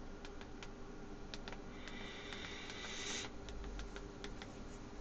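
Computer keyboard keys clicking at an uneven pace as a password is typed, over a steady low hum, with a brief hiss about two to three seconds in.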